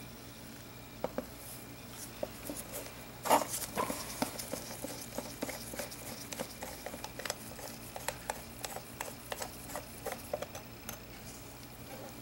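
Gloved hands handling small brass binocular parts: irregular light clicks, taps and rubbing of metal on metal, the sharpest click about three seconds in, over a faint steady hum.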